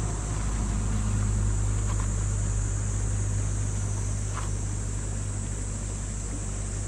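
Steady low rumble of wind buffeting the microphone over the even rush of the river, with a couple of faint clicks as the tarp pole is handled.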